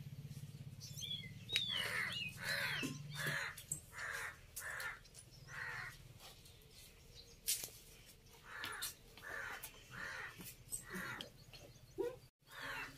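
Birds cawing in the background: a run of short, harsh calls, about one every half second to second, with a pause midway and a single sharp click during it.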